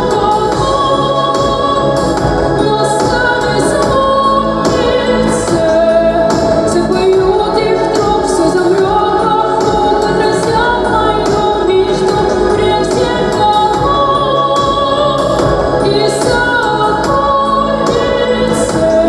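A song: held, sung notes with choir-like voices over an instrumental backing that has frequent short, sharp strokes in the upper range.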